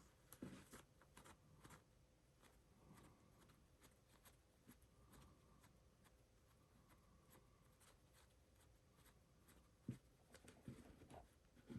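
Near silence with faint handling noise: small clicks and rubbing as a Montblanc 221 fountain pen is unscrewed, and a couple of soft knocks near the end.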